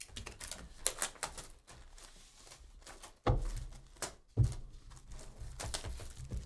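Plastic shrink wrap being slit and peeled off a cardboard box of trading cards, crackling with many sharp clicks. Two heavier thumps of the box being handled come about three and four seconds in.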